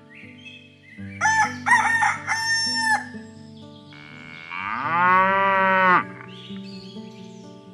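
A rooster crowing, then a cow mooing in one long call that rises at the start, both over soft background music.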